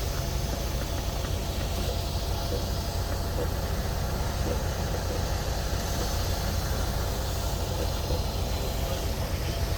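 An engine idling steadily with a low, even rumble and no change in speed.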